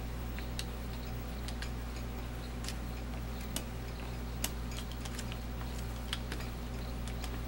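Rubber brayer rolling paint across a tacky homemade gelatin printing plate, giving faint irregular clicks and ticks, one or two a second, over a steady low electrical hum.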